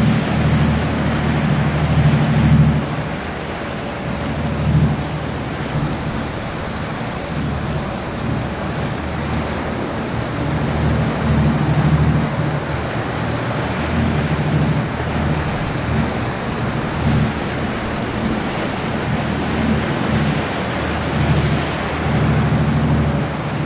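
Wind buffeting the microphone and choppy sea water splashing, with a steady low engine drone under it from a motorboat, swelling and fading.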